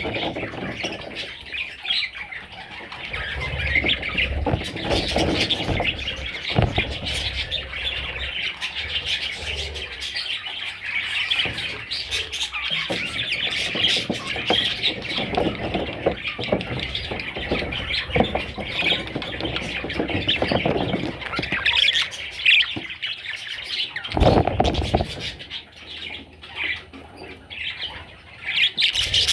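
Budgerigars chattering and squawking without pause, with scattered wing flutters and rustling. A louder low rustle or thump comes about 24 seconds in.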